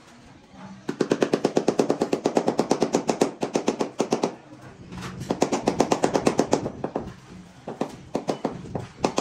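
Rubber mallet tapping a ceramic floor tile rapidly, about a dozen taps a second, to bed it level into the mortar. A long run of taps starts about a second in, a shorter run follows near the middle, and a few separate taps come near the end.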